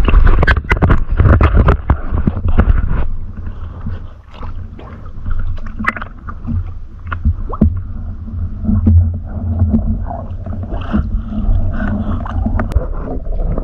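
Lake water splashing and sloshing around a swimmer at the surface, heard through a waterproof camera that rides half under the water, so the sound comes with a low rumble. It is busiest and loudest in the first few seconds, then settles into gentler lapping with scattered splashes.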